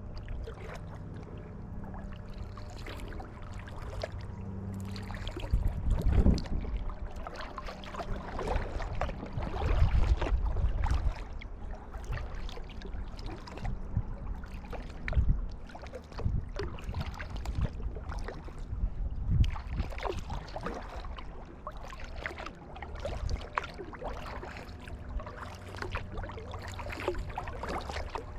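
Kayak paddling: the paddle blades dip and pull through the water with irregular splashing and dripping, and several heavier low surges of water against the hull. A steady low hum sits underneath for the first several seconds.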